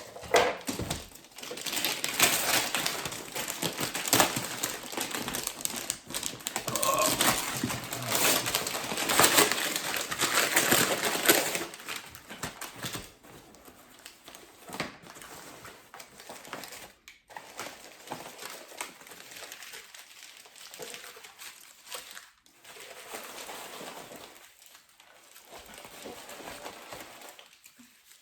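Packaging crinkling and rustling as a parcel is opened and unwrapped, loud for the first ten seconds or so, then quieter handling with small knocks and clicks.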